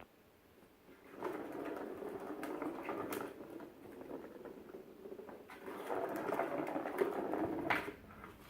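Cat toy making a rattling whir in two spells of about two seconds each, with a few sharp clicks near the end of each spell.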